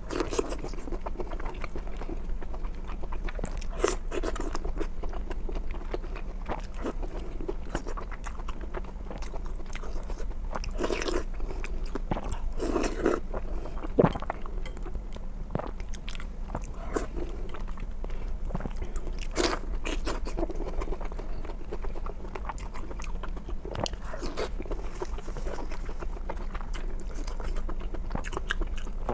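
Close-miked eating of spicy red-oil mao cai: repeated crunchy bites and wet chewing, in irregular clusters of crisp crackles.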